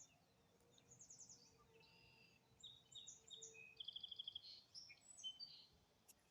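Faint small songbirds singing: a string of high chirps and short whistles, with a quick trill a little past the middle.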